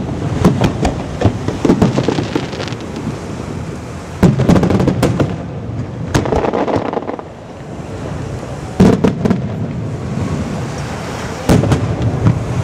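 Large aerial firework shells bursting: a string of sharp bangs, each trailing off in a rolling echo, with the heaviest clusters near the start and about four, nine and eleven and a half seconds in.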